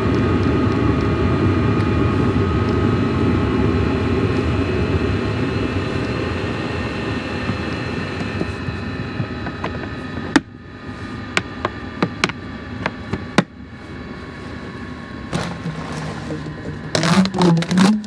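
Self-built Chinese diesel heater running in a hard case, a steady drone with a faint whine that drifts slightly lower. About ten seconds in the sound drops sharply as the lid shuts, followed by several sharp clicks of the case latches, then some handling noise near the end.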